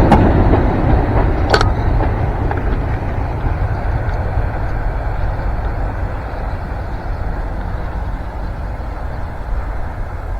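Train running past and moving away, its low rumble fading steadily, with a sharp clack of wheels over the rail about one and a half seconds in.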